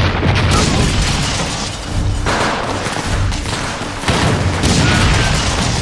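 Battle gunfire: a dense fusillade of rifle and automatic-weapon shots mixed with booms from a light anti-tank gun firing.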